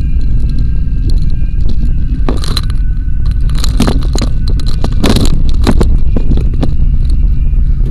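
Low, steady rumble of a car driving, picked up by a dashcam inside the car. From about two to six seconds in there is a run of sharp knocks and scrapes as the dashcam is knocked out of position and tips toward the dashboard.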